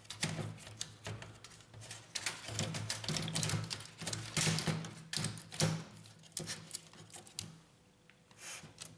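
Fuser unit being fitted into a laser printer's frame: a run of clicks, knocks and scraping of plastic and metal parts as it is seated, dying away near the end with one last brief scrape.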